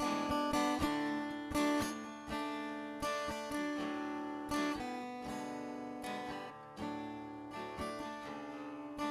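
Acoustic guitar music, chords plucked and left to ring, with a new attack every second or so.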